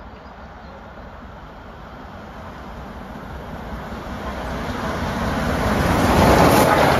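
LMS Black 5 class 4-6-0 steam locomotive approaching on the main line, the noise of its passage growing steadily louder until it runs past close by about six seconds in.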